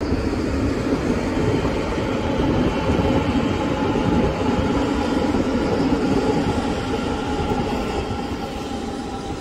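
A train passing close by on the rails, a loud steady rumble of wheels and cars that fades gradually over the last couple of seconds.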